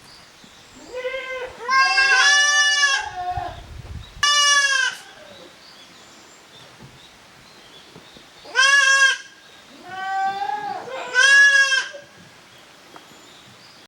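Young goat kids bleating: about six high, quavering calls, bunched in the first few seconds and again after a quiet stretch in the middle, some overlapping as more than one kid calls at once.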